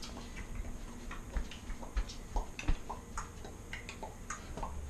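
Quiet, scattered light clicks and taps at an uneven pace, with a few soft thumps among them.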